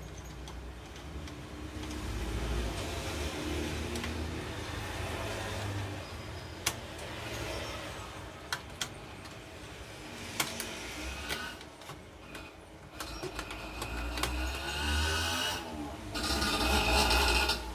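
Light clicks and knocks of hands handling the opened HP LaserJet 1020 Plus printer's parts and wiring, a few sharp ticks about midway, over a steady low background rumble. A louder noisy, hissing stretch comes in near the end.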